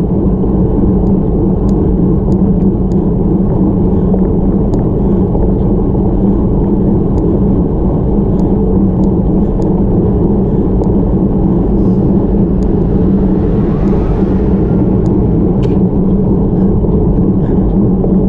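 Steady low rumble of wind and road vibration on a bicycle-mounted camera during a road-bike climb, with scattered sharp ticks. A faint hiss swells and fades about two-thirds of the way through.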